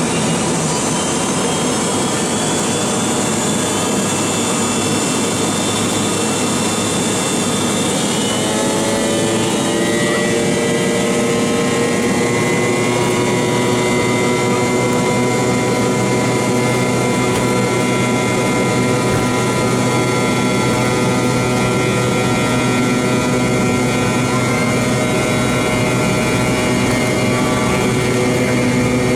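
The MD-88's rear-mounted Pratt & Whitney JT8D turbofans heard inside the cabin, running loud and steady; about ten seconds in their whine climbs in pitch as the engines spool up, then holds at the higher pitch.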